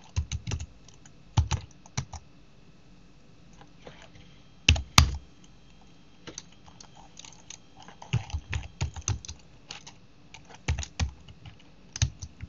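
Typing on a computer keyboard: short runs of keystrokes, two harder key presses about five seconds in, a pause of a few seconds, then a quicker run of keystrokes.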